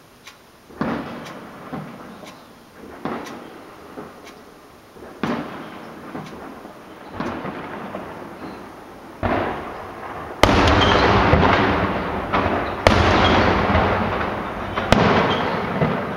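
Aerial fireworks shells bursting, each a sharp bang that trails off in an echo, about one every one to two seconds. From about ten seconds in the bangs are louder and come faster, overlapping into a continuous rumble.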